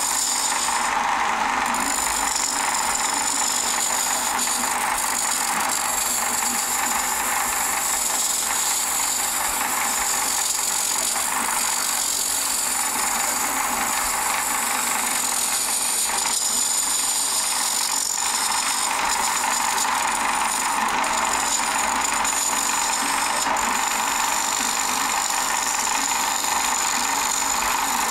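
Wood lathe running while a gouge cuts the face of a spinning glued-up stacked bowl, a continuous hiss of shavings coming off that swells and eases as the cut goes, over a steady high whine.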